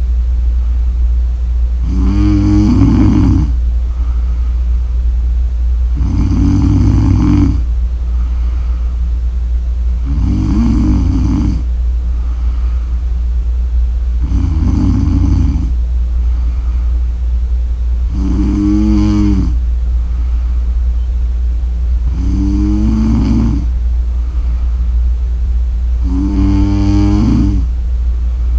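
A woman snoring in a slow, regular rhythm: seven buzzing snores, each about a second and a half long and coming about every four seconds, over a steady low hum.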